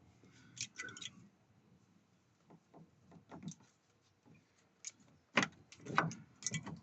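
Scattered knocks and clicks of a radiator being wiggled against the fan shroud it is snagged on, as it is worked loose for removal; the two loudest knocks come near the end.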